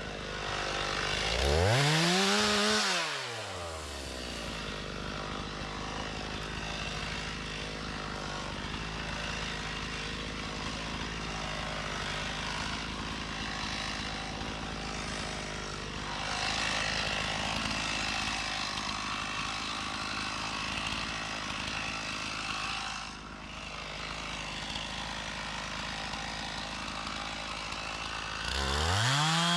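Stihl MS 391 two-stroke chainsaw idling, revved up and back down once about two seconds in, then throttled up to full speed near the end.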